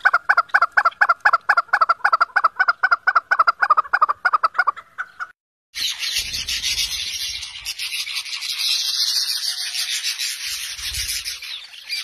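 Chukar partridge calling: a fast, even run of short clucking notes, about six a second, that stops about five seconds in. After a short break comes a dense, high-pitched hiss of many overlapping sounds.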